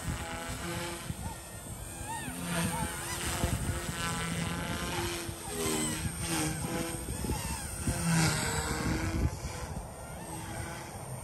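Blade 150S micro RC helicopter flying aerobatics with its main rotor governed at 5000 rpm: a whine from its electric motor and rotors that rises and falls in pitch as it maneuvers.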